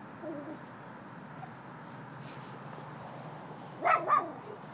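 A dog barks twice in quick succession near the end, with a fainter short bark or yip about a quarter second in.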